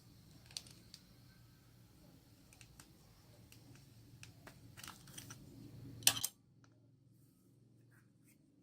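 Homemade slime being squished and worked by hand: a run of small sticky clicks and pops that grows busier, with a loud cluster about six seconds in, after which the sound drops away suddenly.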